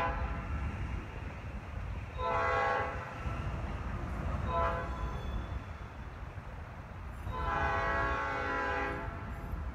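Nathan P5 five-chime air horn on a GP38-2 locomotive sounding the grade-crossing signal: a long blast ending just after the start, another long blast about two seconds in, a short one near the middle, and a final long blast near the end. A steady low rumble lies under it.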